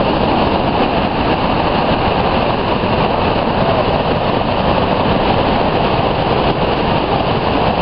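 Water released over a dam spillway at full capacity, crashing down in heavy white water and spray: a loud, steady roar.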